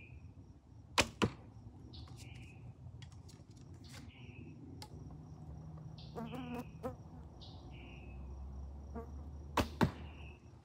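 A longbow shot twice: each time the string snaps on release and the arrow strikes the target about a quarter second later, as two sharp clicks. Birds chirp repeatedly and an insect trills steadily in the background.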